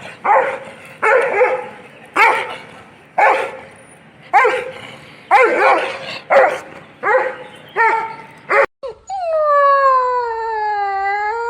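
A dog barking about ten times, roughly once a second. After a brief break, a dog gives one long howl that dips in pitch and climbs again.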